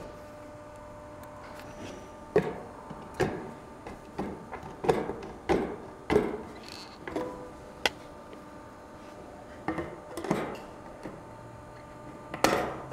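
Hand tin snips cutting the thin steel barge capping flashing: about ten separate sharp snips, unevenly spaced, the loudest near the end.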